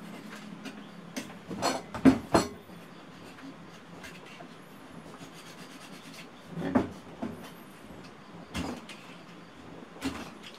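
A small hand tool cutting and prying at a nail sunk in a wooden block, giving a few sharp clicks and knocks: four close together in the first couple of seconds, then single ones past the middle and near the end.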